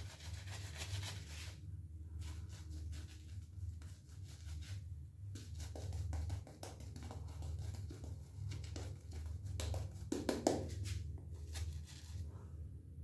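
Edwin Jagger DE87 double-edge safety razor scraping stubble through shaving lather: a run of short, scratchy strokes with brief pauses between passes, over a steady low hum.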